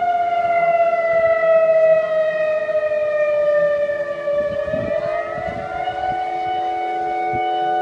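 Tsunami warning siren sounding a long wail that slowly sinks in pitch and then rises back about two-thirds of the way through, over lower steady tones. It signals a possible tsunami and the order to evacuate to a safe zone.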